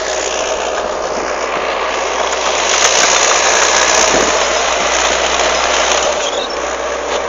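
A motor vehicle's engine running steadily, under an even noise.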